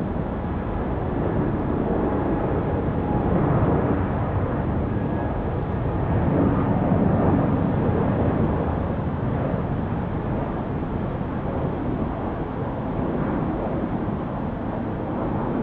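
Airbus A320 jet engines on final approach and landing: a steady rushing jet noise that swells around four seconds in and again around seven, then eases a little as the plane settles onto the runway.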